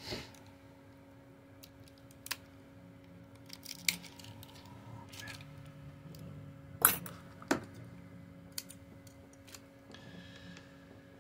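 Small metal hand tools handled over a work mat: scattered light clicks and taps of tweezers and scissors as double-sided tape is pulled from its roll and cut to length, with the sharpest clicks about seven seconds in.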